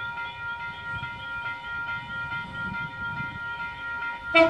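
V-set electric intercity train approaching: a steady high-pitched whine, then a loud blast of its horn near the end.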